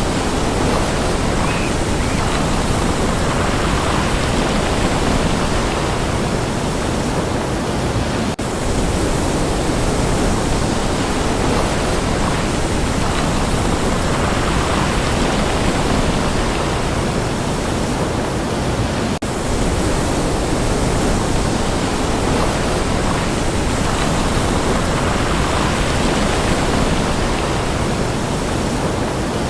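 Steady rush of sea surf and wind at the shore, a loud, even noise that breaks off briefly twice, about eight and nineteen seconds in.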